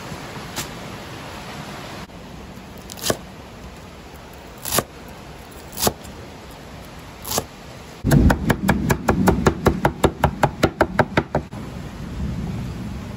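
Chef's knife chopping fresh leaf celery on a wooden cutting board: a few single knocks, then a fast run of about seven chops a second for some three seconds. Near the end the knife scrapes the chopped greens off the board into a wooden bowl.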